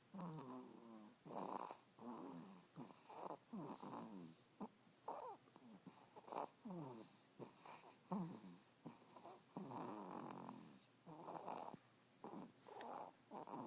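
Snoring: a quick, irregular run of short snores and snorts, one or two a second. Many of them carry a tone that slides down in pitch.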